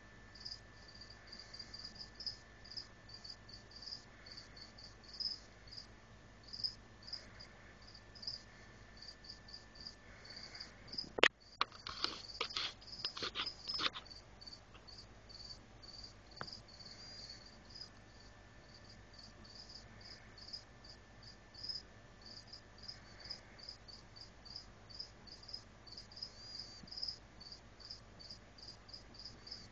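Cricket chirping in short, regular high chirps, a few a second. About eleven seconds in, a sharp click is followed by a few seconds of clattering knocks.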